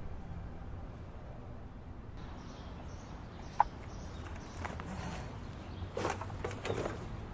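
Outdoor ambience with a steady low background rumble and a single short bird chirp about halfway through. Near the end, a back door opens and a trash bag rustles and is dropped into a plastic bin.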